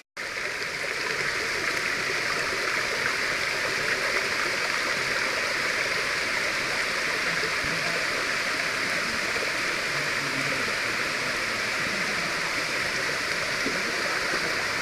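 Steady rush of water cascading down a waterfall, an even hiss that holds at one level throughout.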